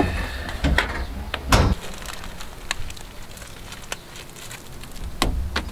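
A few scattered knocks and thuds of work on a roof, the loudest about a second and a half in: boots stepping on the timber battens and plastic in-roof solar mounting trays. A low rumble of wind on the microphone comes and goes.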